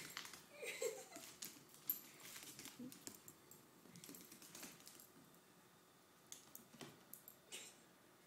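Faint, irregular clicks and taps of a dog's claws on a hard floor as it scrambles about.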